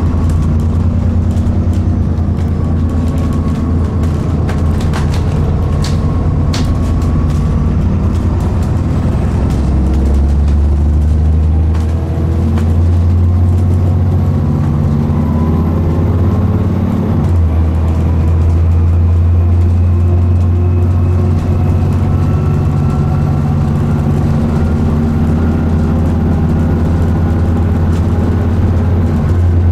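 Diesel engine and drivetrain of an Alexander Dennis Enviro400 Trident double-decker bus under way, heard from inside the passenger saloon: a steady low drone. There are a few sharp rattles in the first several seconds, and the engine note drops suddenly a little past halfway.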